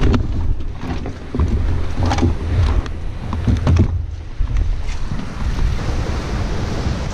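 River rapids rushing, with wind buffeting the microphone in a heavy low rumble. Several short knocks and bumps in the first half come from the canoe and gear being handled and the canoe being lifted.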